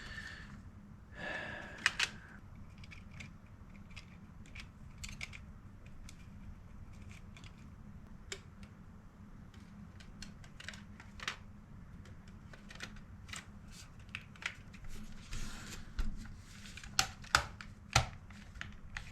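Scattered clicks, taps and light rattles of a car radio's casing and small parts being handled and fitted back together, with a few sharper knocks near the end, over a low steady hum.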